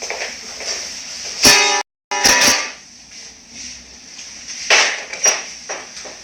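Music with a plucked guitar, broken by several short loud sounds and a brief cut to silence just before two seconds in.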